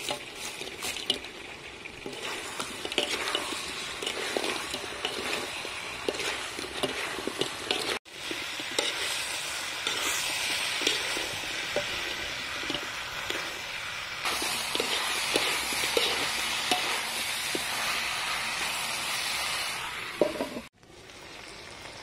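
Battered chicken pieces and pineapple sizzling in sauce in a wok while being stirred and tossed, the utensil scraping and clicking against the metal. The sizzle breaks off suddenly twice, at about eight seconds and near the end.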